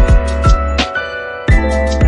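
Background music with a steady beat: deep bass, kick drum hits and sustained pitched notes.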